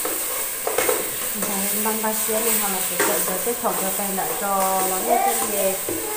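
Ladle stirring liquid in a large aluminium cooking pot, with a few sharp clicks of the ladle against the pot's side, over a steady hiss. A voice carries on underneath.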